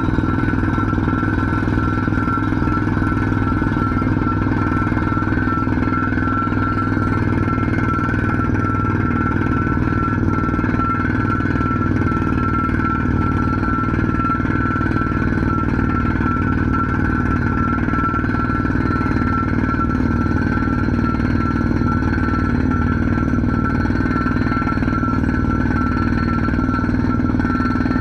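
Drilling machine running steadily under power: a constant high whine over a low mechanical drone, unchanging throughout.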